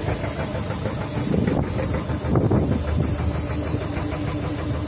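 Small fishing boat's engine running steadily under way, with a constant hiss of wind and water over it.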